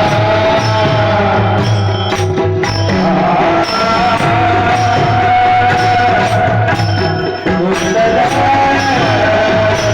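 Marathi devotional kirtan music: a sung melody with long held, gently bending notes over steady drum beats and frequent cymbal strikes.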